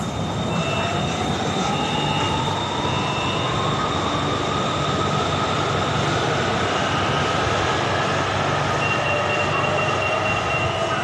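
BTS Skytrain electric train running, heard from inside the carriage. A steady rumble of the running gear, with a whine that rises slowly in pitch over the first several seconds as the train gathers speed, and thin high squeals on and off.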